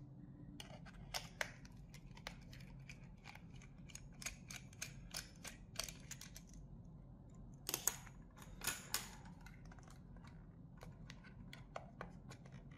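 Precision screwdriver unscrewing small screws from the plastic housing of a handheld vacuum cleaner: faint, irregular clicks and ticks of the bit and plastic handling, with a few louder plastic clacks about eight and nine seconds in.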